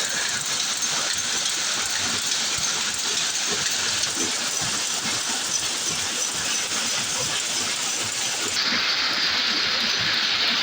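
Chinese-made rapier weaving loom running: a dense, steady mechanical clatter of many rapid small strikes over a continuous hiss.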